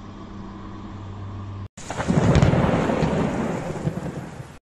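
A steady low hum, then after a sudden break about a second and a half in, a loud rumble of thunder with heavy rain, swelling and then slowly fading.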